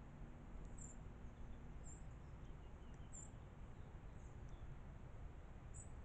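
Faint outdoor ambience: a steady low background noise with short, high chirps about once a second, four of them, plus a few fainter chirps in between.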